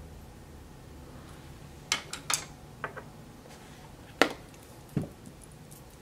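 Small plastic makeup items and brushes being handled on a vanity table: a scatter of light clicks and knocks, the sharpest about four seconds in, followed by a duller knock.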